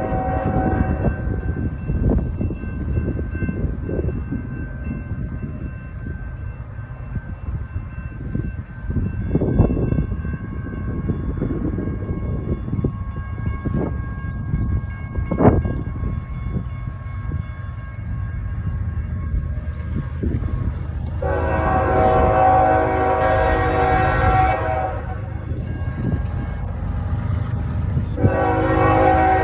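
CSX diesel locomotive horn blowing for a grade crossing, over the steady low rumble of the passing train. One blast ends about a second in, a long blast of about three and a half seconds sounds past the middle, and another starts near the end. A few sharp knocks come in between, the loudest about halfway.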